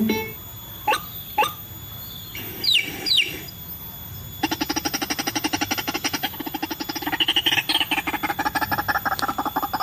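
White-breasted waterhen (ruak-ruak) calls: a few short sharp notes and two quick rising chirps, then from about halfway a fast, evenly pulsed croaking call that keeps going.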